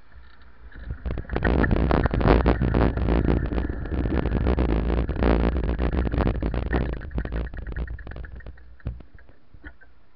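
Rumbling and crackling on a bicycle-mounted camera's microphone while riding, from wind buffeting and road vibration. It swells about a second in, stays loud for several seconds, and fades out near the end.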